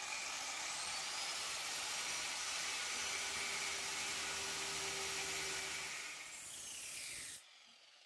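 Angle grinder with a thin cut-off disc cutting through a steel bicycle gear cog: a steady high whine with a grinding hiss under load. Near the end the pitch falls as the disc winds down, then the sound stops.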